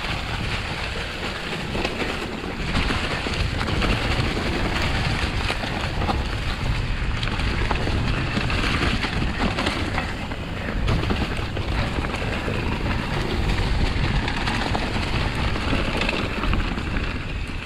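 Mountain bike riding down a leaf-covered dirt trail: wind rushing over the microphone and tyres rolling over leaves and dirt, with frequent small clicks and rattles from the bike.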